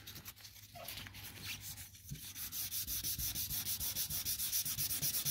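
Wet sandpaper being rubbed by hand over a wet painted truck body panel, sanding a dirt speck out of the black base coat before clear coat. Light, uneven rubbing at first, then from about two seconds in quick, even back-and-forth strokes, about five a second.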